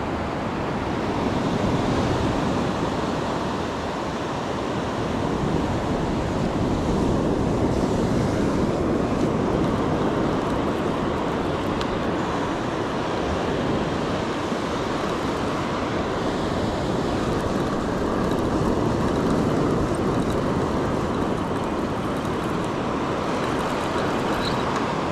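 Surf breaking and washing up a sandy beach, mixed with wind on the microphone: a steady rushing noise that swells and eases every several seconds.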